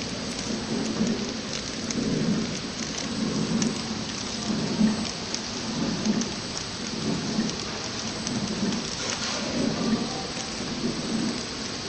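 250X horizontal flow-wrap packing machine running in automatic mode. A steady mechanical whir and hiss with a low pulse repeating about every second and a quarter as the machine cycles.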